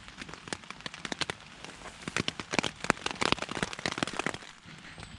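Steady rain on a tent, heard from inside: many sharp drop taps on the fabric, thickest in the middle.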